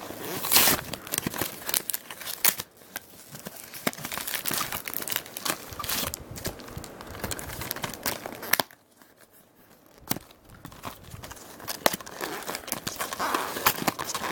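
Plastic packaging of a box of trading-card packs crinkling and tearing as it is pulled open by hand, in irregular crackling bursts with a short pause a little past the middle.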